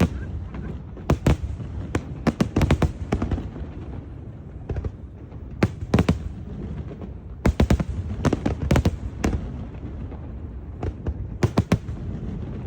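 Aerial fireworks bursting: clusters of sharp bangs and crackles in quick volleys, with pauses of a second or two between them, over a low rolling rumble.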